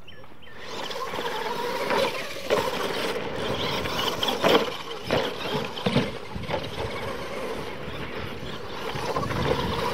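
Two radio-controlled scale monster trucks launching and racing on a dirt track: their motors whine, rising and falling in pitch, over the hiss of tyres on dirt, with several sharp thuds along the way.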